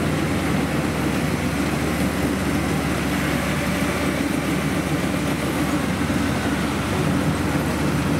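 Kubota DC-70 combine harvester's diesel engine running steadily under load while cutting rice, a continuous even drone with machinery noise over it.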